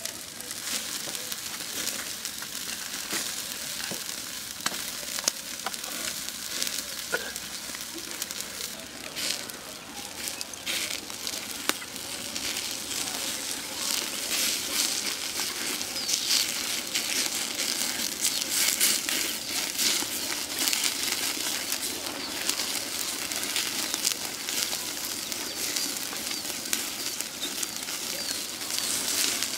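Open wood fire crackling under whole tandoori chickens roasting on a spit, with the fat sizzling: a steady hiss full of frequent sharp pops.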